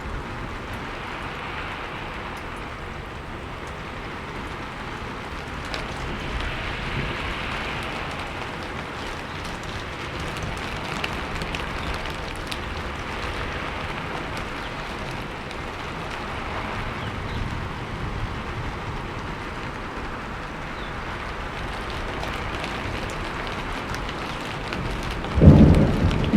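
Steady rain falling, swelling and easing a little, with a sudden loud clap of thunder about a second before the end.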